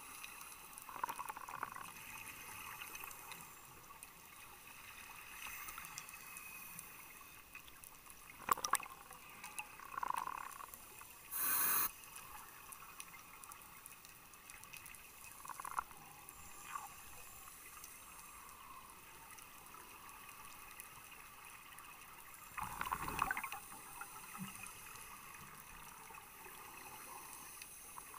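Underwater sound of a scuba dive: a steady hiss broken every few seconds by short bursts of bubbling, typical of a diver exhaling through a regulator. The loudest burst comes a little before the middle.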